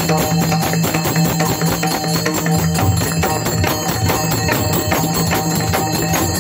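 Pakhawaj and tabla drumming together in a fast, dense rhythm over a steady held drone note.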